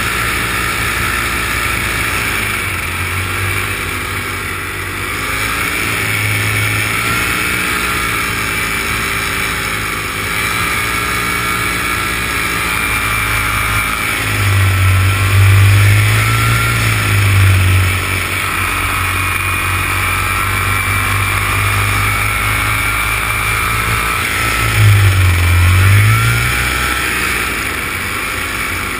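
Engine and propeller of a light aircraft running steadily in flight, its pitch drifting slowly up and down. A deep low rumble swells in the middle and again near the end, where the sound is loudest.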